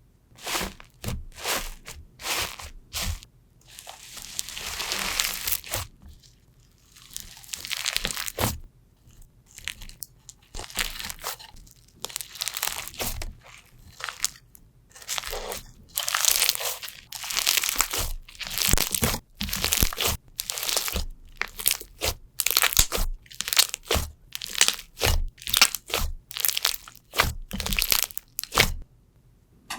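Slime being played with by hand, giving an irregular run of short crackles with a few longer, hissing swells.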